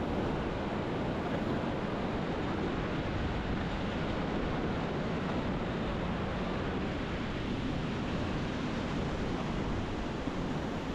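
Lake Superior waves breaking and washing onto the beach, with steady wind buffeting the microphone.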